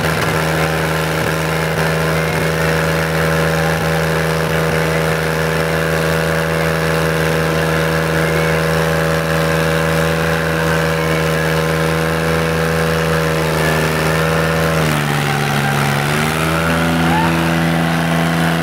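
Tractor diesel engine running hard at high, steady revs while hitched to another tractor, its black exhaust smoke showing it labouring under load. About fifteen seconds in the revs sag briefly, then climb back up.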